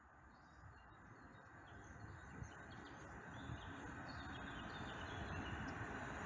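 An approaching train, its rumble growing steadily louder, with small birds chirping over it.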